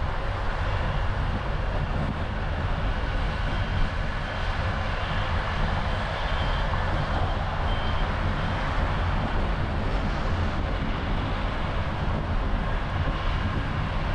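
Steady road noise of a car driving along a city street: a low rumble with tyre and wind hiss, holding even with no sharp events.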